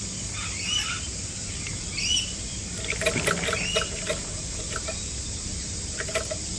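Scattered light clicks and rattles over a steady outdoor hiss, with a few short high chirps, while the two-stroke Greens roller mower's engine is still off, choked and ready for starting.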